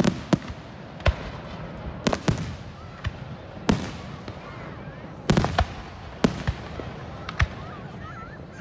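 Aerial firework shells bursting overhead: a series of sharp bangs at irregular intervals, about one every second or so, with a quick cluster of three about five seconds in.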